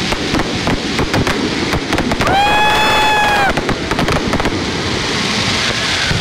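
Fireworks display bursting close overhead: dense, continuous crackling and popping of crackle-effect shells, with heavier bangs among them. About two seconds in, a steady high pitched tone sounds for just over a second.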